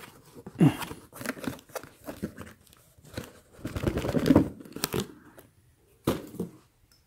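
Cardboard boxes being handled: irregular scraping and rustling as a smaller box is slid out of a cardboard shipping carton, loudest about four seconds in, then a short knock about six seconds in as a box is set down.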